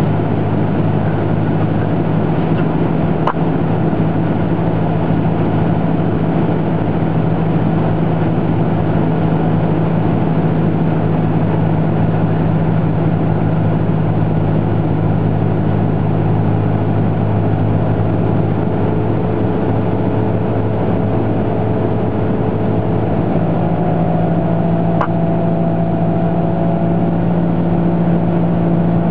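Cessna 172S's four-cylinder Lycoming engine and propeller droning steadily at cruise-descent power, heard from inside the cabin. Two brief clicks cut through it, about three seconds in and near the end.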